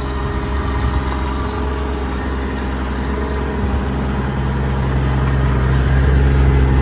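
An engine on a work truck running steadily, getting louder about two-thirds of the way through.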